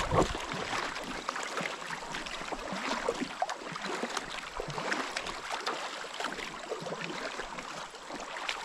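Creek water splashing and gurgling around a canoe as it floats, a steady wash of many small splashes and drips.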